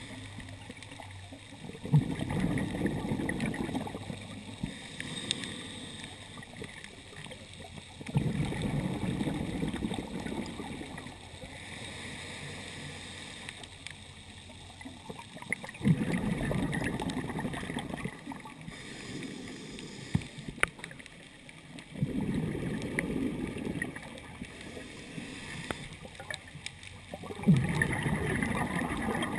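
Scuba diver breathing through a regulator, heard through a GoPro's underwater housing: five rushes of exhaled bubbles about every six seconds, some opening with a sharp click, with quieter gaps between.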